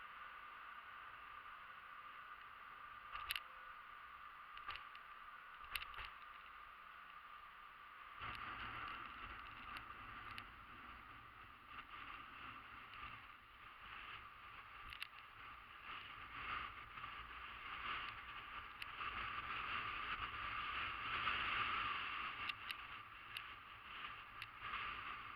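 Hoverboard rolling over a cargo ship's steel deck: a steady hiss with scattered sharp clicks and knocks. A low rumble joins about eight seconds in.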